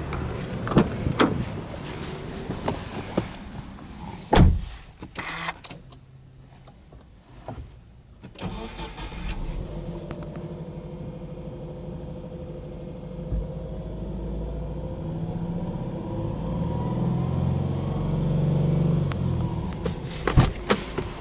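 Subaru Impreza 1.5i-S's 1.5-litre flat-four boxer engine is started about eight seconds in and then idles steadily, at about 1,500 rpm on the tachometer. Before the start there are a few clicks and one loud thump.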